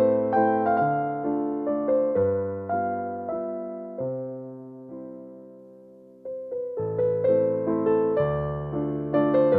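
Background music on electric piano: a gentle melody of struck notes that die away, thinning to a lull about five seconds in and picking up again a second or so later.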